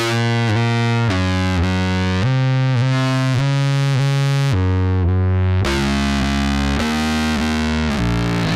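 Instrumental music: a heavily distorted, effects-laden instrument plays a chunky line of held notes that step to a new pitch every half second to a second. The sound briefly thins out about five seconds in, then the line returns fuller.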